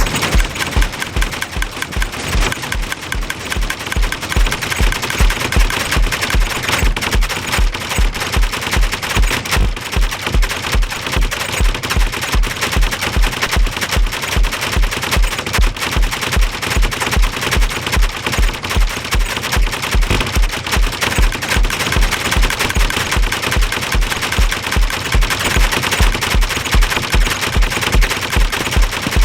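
Homemade noise machine running: a loud, continuous clatter of rapid clicks, with a low thump repeating about two to three times a second.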